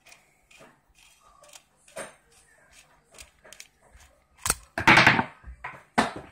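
Light clicks and taps of hands handling the metal body of a Mikuni VM22 carburetor, then a sharp click and a short, louder scraping clatter about four and a half seconds in as the slide spring is drawn out of the top of the carburetor.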